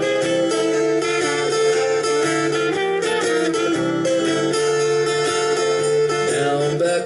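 Live acoustic band playing an instrumental passage: acoustic guitar strumming chords under a melody instrument holding long notes.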